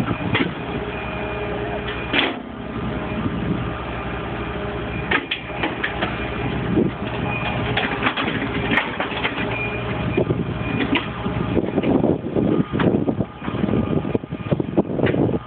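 Hitachi EX120 hydraulic excavator running, its diesel engine droning steadily under many short clanks and knocks, with brief high squeaks and whines coming and going.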